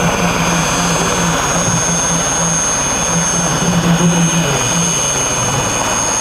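Puma-type military helicopter in flight, its turbines giving a steady high whine over the rapid beat of the rotor.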